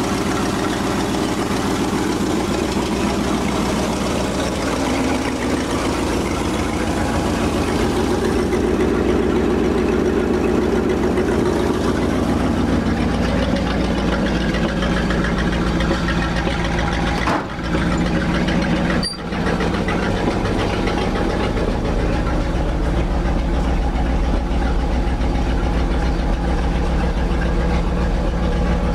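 1968 Ford F600 dump truck's gasoline engine idling steadily, with two brief dropouts in the sound about two thirds of the way through.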